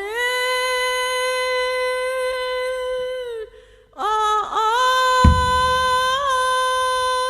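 A woman's voice singing two long held notes on the same pitch, with a short break for breath a little past three seconds; the second note wavers slightly. A brief low thump comes about five seconds in.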